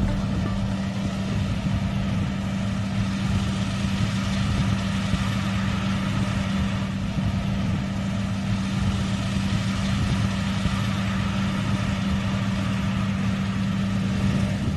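Bakhsish 930 combine harvester's engine running steadily, a constant drone with a strong low hum and machinery noise over it.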